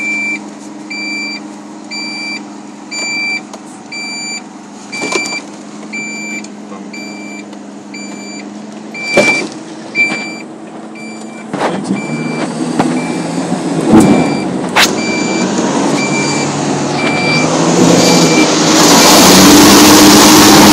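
Amphibious car's engine running under a high electronic warning beep that repeats about once a second, with a few sharp knocks as the car rolls down a slipway. Near the end a loud rushing of water swells up as the car enters the river, and the beeping stops.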